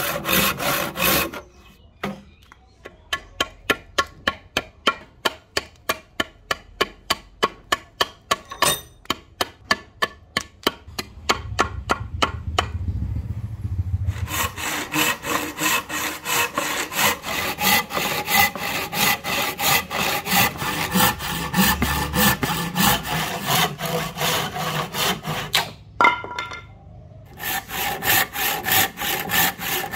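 Hand saw rasping through a rosewood axe-handle blank, then a long run of sharp knocks, about four a second, as a machete chops out the waste between the saw kerfs. After that the hand saw works steadily again, with a short pause near the end.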